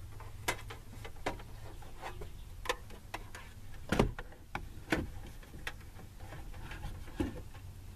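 Irregular clicks and knocks of plugs, cables and plastic being handled behind a ceiling-mounted TV, the loudest knock about four seconds in, over a steady low hum.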